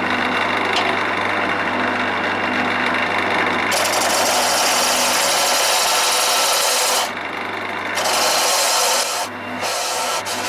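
Wood lathe running with a steady motor hum while a turning tool cuts a tenon on the spinning leg blank. The loud cutting hiss of the tool on the wood comes in about four seconds in and runs in passes, breaking off briefly twice.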